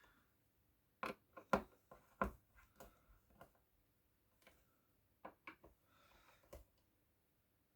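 Scattered light clicks and knocks of small parts and tools being handled during speaker reassembly, one cluster in the first half and a few more near the end.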